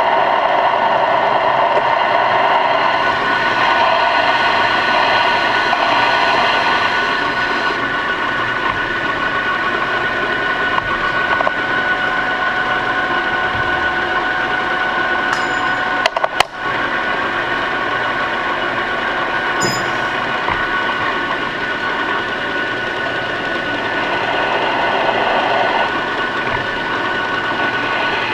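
Metal lathe running steadily with its chuck spinning while a small steel part is machined: an even machine whine with several steady tones. There is a brief knock about sixteen seconds in.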